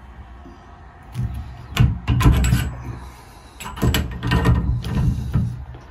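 Adjustable wrench turning and tightening a new brass stem into a Sayco two-handle shower valve: two spells of metal scraping and clicking, the first about a second in and the second just past halfway, as the wrench grips and is reset on the stem's hex.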